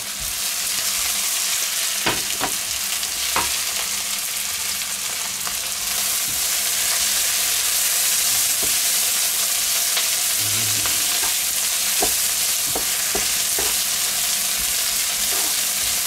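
Sliced onions sizzling in clarified butter in a wok, stirred with a wooden spatula that scrapes and knocks against the pan now and then. The sizzle gets louder about six seconds in.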